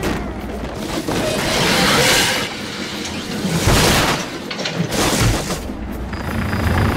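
Film car-chase sound effects: a car crashing and smashing through obstacles, with heavy thuds and flying debris coming in three loud surges, about two, three and a half and five seconds in.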